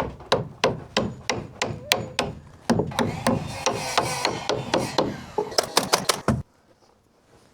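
Hammer blows on wood, a quick run of sharp knocks about three a second, with a stretch of rubbing and scraping in the middle. It stops suddenly about six and a half seconds in.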